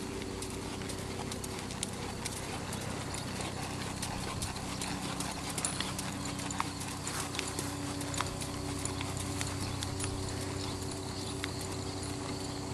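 Hoofbeats of a Quarter Horse gelding walking under saddle on a dirt arena, coming as soft, irregular clicks over a steady low hum.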